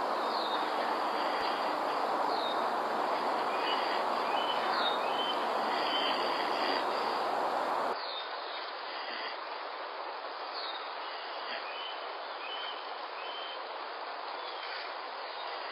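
Steady hiss-like background noise with short bird chirps every second or so. About halfway the sound turns abruptly thinner and a little quieter.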